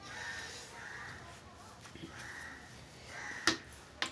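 A bird giving about four short, harsh calls, and two sharp clicks near the end, the first of them the loudest sound.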